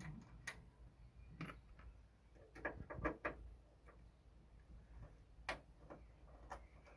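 Faint, irregular clicks and taps of hand tools and fittings being worked on the underside of a car bonnet, a handful spread over several seconds with a small cluster about three seconds in, over a low steady outdoor rumble.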